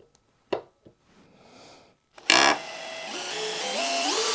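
Cordless combi drill set to drill mode, boring into a timber sleeper: a few light clicks, then about two seconds in the motor starts with a loud burst and its whine climbs in pitch as the trigger is squeezed and speed builds under a heavy load.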